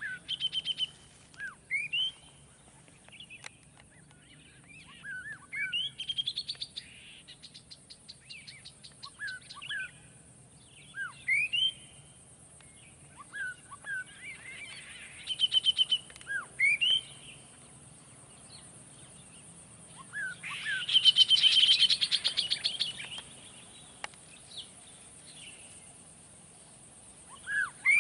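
Wild songbirds singing in scrub: repeated short whistled phrases with quick rising and falling notes, and a louder trilling song about two-thirds of the way through.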